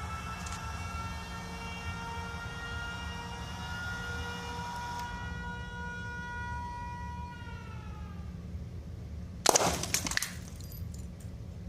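A high whine made of several tones from the home-built coil gun's capacitor charger, slowly climbing, then bending down and fading, over a steady low hum. About nine and a half seconds in the coil gun fires with a single sharp crash as the lightbulb shatters, followed by a few small tinkles of glass.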